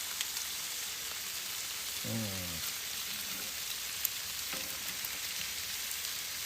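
Lamb loin chops sizzling on a barbecue grill: a steady frying hiss with small crackles. A short, low, falling voice sound comes about two seconds in.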